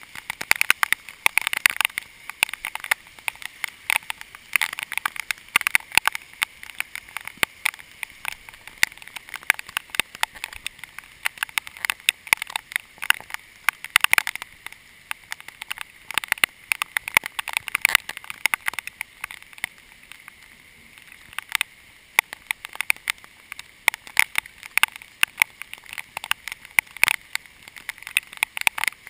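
Heavy rain, with drops striking the camera as a dense, irregular patter of sharp ticks over a steady hiss.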